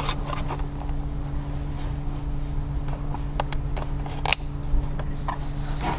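Small screwdriver scraping and clicking against a cigarette lighter socket as it pushes in the socket's retaining clip: a handful of short sharp clicks, the loudest about four seconds in. A steady low hum runs underneath.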